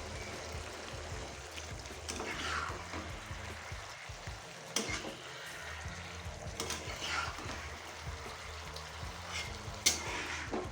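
Pui shaak (Malabar spinach) and pumpkin sizzling in a kadai, with a spatula scraping and stirring through them a few times.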